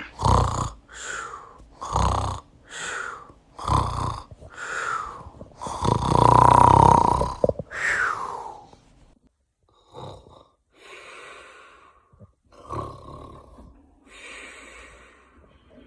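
A man snoring: short snores about once a second, then one long, louder snore with a held tone about six seconds in, followed by quieter, hissing breaths.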